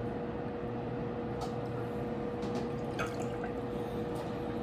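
Liqueur glugging steadily from a bottle's neck into a small shot glass.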